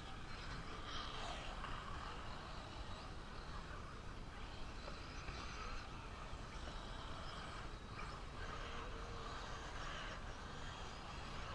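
1/8-scale electric RC truggies running on a dirt track some way off. Faint electric motor whine and tyre noise swell and fade several times as they pass, over a steady low rumble.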